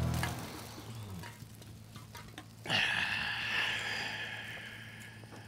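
A man urinating against a pickup truck: a splashing stream that starts suddenly about two and a half seconds in and tails off gradually.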